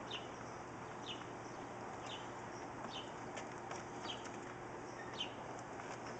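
A bird repeating a short, high, falling chirp about once a second, over a faint steady hum.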